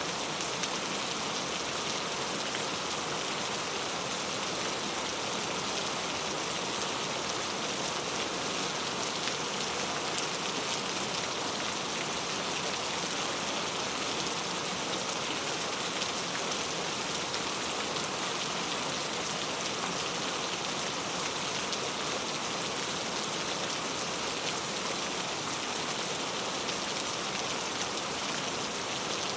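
Steady rain falling into a puddle, an even splashing hiss with no thunder.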